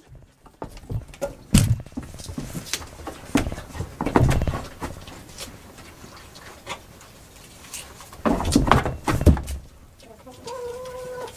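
Goats moving about in a wooden barn: irregular knocks and scuffs of hooves on wooden boards and straw, with a short steady-pitched animal call near the end.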